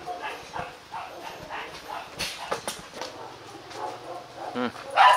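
H'mong bobtail dogs making short whines and yips as they meet and sniff each other, with a brief rising-and-falling whine about four and a half seconds in and a louder sound near the end.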